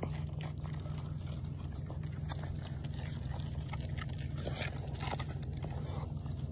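Fainting goats munching lettuce, carrot and peel scraps, with irregular crisp crunches of biting, over a steady low rumble.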